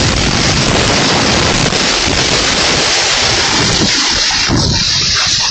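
Loud, steady rush of typhoon wind and heavy rain, with wind buffeting the microphone.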